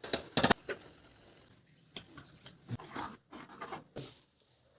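Metal utensils clanking and scraping: a loud cluster of sharp clanks in the first half-second, then scattered lighter clicks and scrapes.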